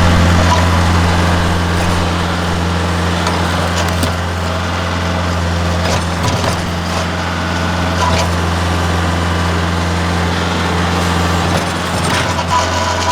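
Tractor engine running steadily while its loader bucket works at broken concrete and rock, with a few scattered knocks and scrapes.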